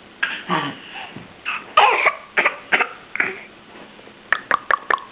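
A person coughing several times in short bursts, then a quick run of about five sharp clicks near the end.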